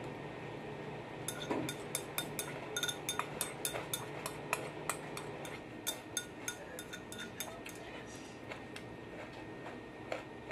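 Chopsticks clinking and scraping against a ceramic bowl while food is pushed into the mouth: a quick, uneven run of small clinks starting about a second in and thinning out near the end.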